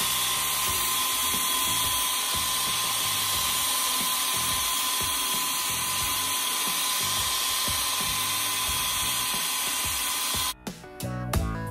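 Electric drill spinning a wire brush against rusty grill grates: a steady whine with the hiss of the wire scrubbing rust. Near the end it cuts off and electronic music with a beat comes in.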